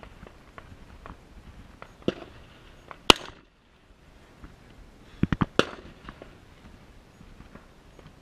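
Gunshots: one loud crack about three seconds in, then a quick string of three shots a little after five seconds, with fainter knocks and clicks between.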